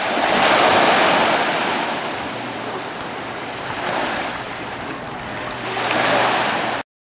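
Small sea waves washing in on the shore, swelling and fading three times, with wind on the microphone. The sound cuts off suddenly near the end.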